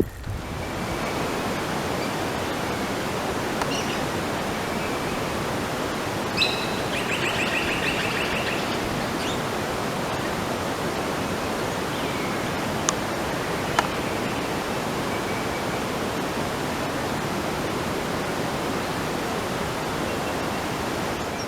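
A steady, even rushing hiss that starts and stops abruptly, with a short trill about seven seconds in and two faint clicks later on.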